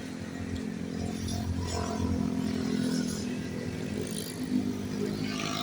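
A motor vehicle engine running steadily, with road traffic noise.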